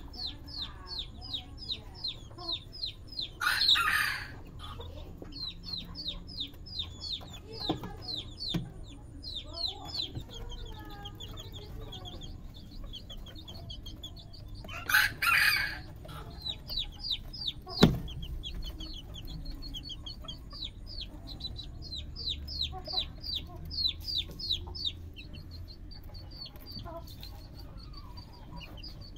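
Young Serama chickens peeping continuously, a quick run of short high peeps several a second. Two brief harsh, raspy calls stand out, about four seconds in and again about fifteen seconds in. A single sharp knock comes about eighteen seconds in.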